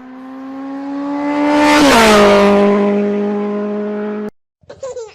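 A fast vehicle passing by: a steady engine tone grows louder, drops in pitch as it goes past about two seconds in, then fades and is cut off suddenly near the end.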